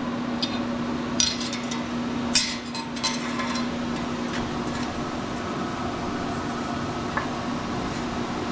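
Aluminium speed square clinking against a steel bar and the saw's steel vise as it is set against a fresh cut to check the angle: a handful of sharp metallic clinks, most in the first three seconds and one near the end. Under them runs a steady background hum, one low tone of which stops about five seconds in.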